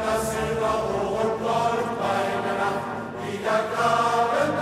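Background choral music: voices chanting long held chords that change every couple of seconds.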